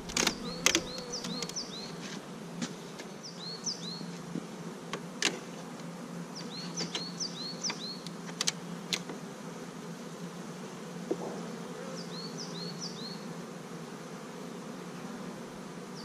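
Honeybees buzzing steadily around an open hive, with a few sharp clicks and knocks in the first second and again around five and nine seconds in.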